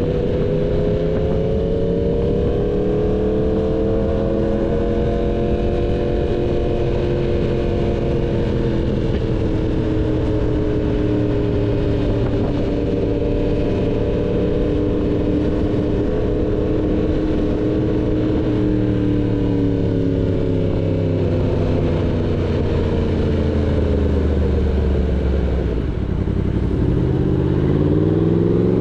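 Yamaha MT-10's crossplane inline-four through an SC Project full-system exhaust, ridden at cruising revs that rise and fall gently. Near the end the revs drop off, then climb quickly as it accelerates.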